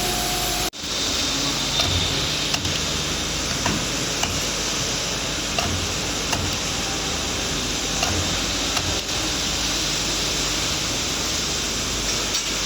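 2D CNC wire bending machine running: a steady mechanical hum and hiss with light clicks and knocks at irregular intervals of about a second as it feeds and bends the wire.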